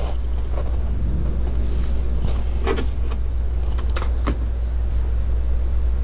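A steady low hum, with a few light clicks and taps about two to four and a half seconds in.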